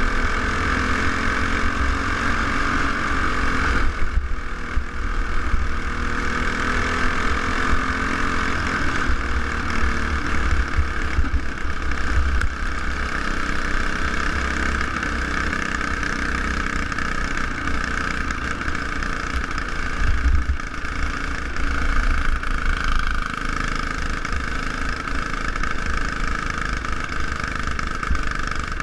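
Single-cylinder four-stroke clone kart engine running hard as the kart laps, with brief dips in its sound about four and twenty seconds in. Wind rumbles steadily on the onboard microphone.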